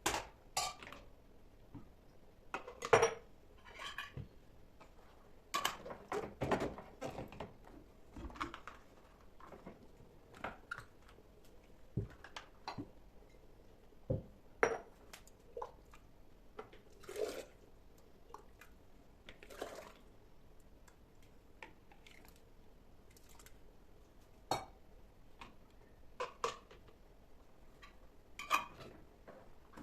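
Dishes and utensils being handled: scattered clinks and knocks with short quiet gaps between them, the loudest a few seconds in, over a faint steady hum.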